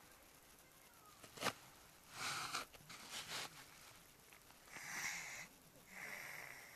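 A man snoring: a few noisy, hissing breaths, then a thin wheezy whistle that holds from about six seconds in. A sharp click about a second and a half in is the loudest sound.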